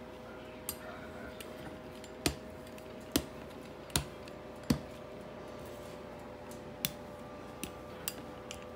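Pizza cutter clicking and knocking against the counter as it rolls through thin dumpling dough. Four louder knocks come just under a second apart in the middle, with lighter clicks around them, over a faint steady hum.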